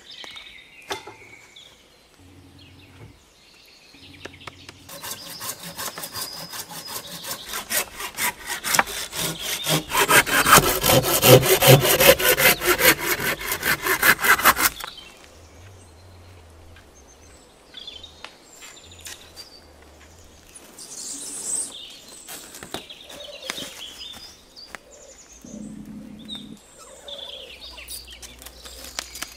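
Hand saw cutting through green wooden poles with fast back-and-forth strokes. The sawing starts about five seconds in, grows louder, and stops abruptly about fifteen seconds in.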